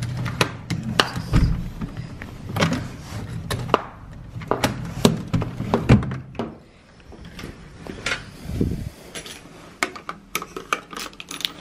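A key being worked in a room door's lever-handle lock and the door being opened: a run of sharp metal clicks and rattles from the key and handle, with a heavier knock about eight and a half seconds in.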